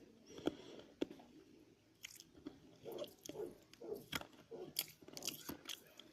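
A person chewing and crunching something crisp close to the microphone: a string of short, irregular crunches and mouth sounds.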